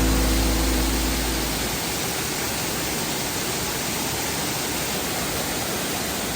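Steady rushing roar of a waterfall, an even hiss of falling water. The last low notes of background music hold under it and stop about two seconds in.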